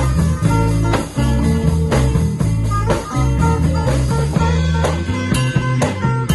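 Kugiran band music: electric guitars playing melody and chords over a bass guitar and drums, at a steady beat. Sharp drum and cymbal hits come through more clearly near the end.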